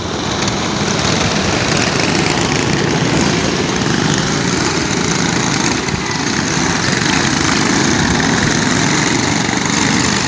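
A pack of racing go-karts' small engines running together at speed, a loud, steady, dense buzz.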